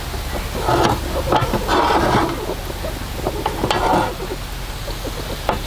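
Potato wedges sizzling in a hot skillet on a grill, with a few short bursts of scraping and rattling as the pan is gripped and shifted on the grate.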